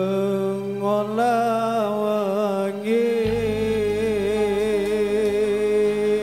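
Slow music: a long-held melody with a wavering vibrato over a steady low drone and bass, the notes changing only every second or two.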